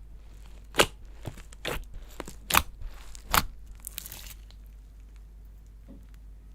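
Slime being pressed and stretched by hand, giving a series of sharp crackly snaps and pops in the first four seconds or so, then only faint handling.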